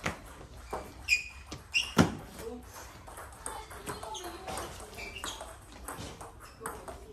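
Table tennis ball knocking off paddles and the table in a rally: a string of short, sharp clicks, the loudest about two seconds in.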